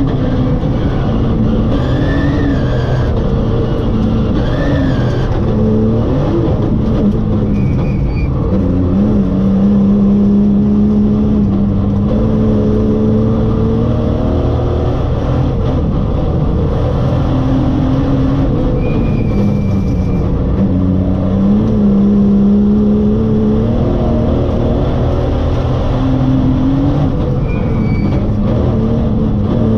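Rally car engine heard from inside the cabin at speed, its pitch repeatedly rising under acceleration and dropping back at gear changes and braking.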